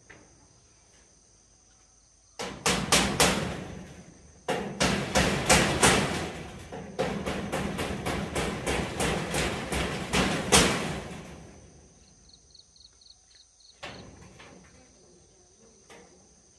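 Hammer blows coming quickly, about three a second, in a short run and then a longer run lasting several seconds, with a high steady drone of insects behind them.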